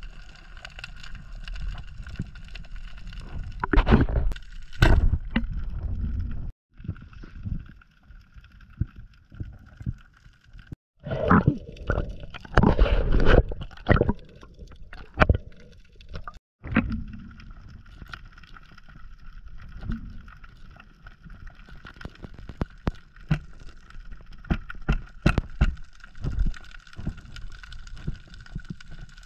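Underwater sound through a diver's camera housing: a steady hum with faint clicks, broken by loud knocks and rustling around four to five seconds in and again from about eleven to fourteen seconds, as a speared fish is handled on the spear. The sound cuts out briefly three times.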